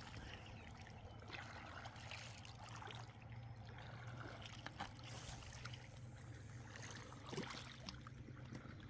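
Faint lapping of lake water against a rocky shore, with a few soft ticks.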